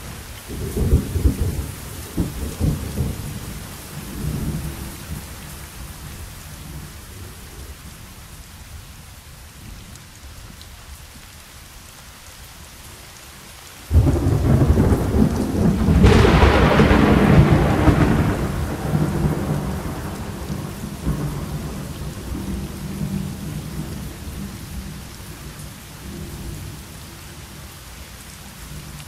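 Thunderstorm: steady rain with thunder. Low rumbles come in the first few seconds, then a sudden loud clap about halfway through runs into a long rumble that slowly dies away.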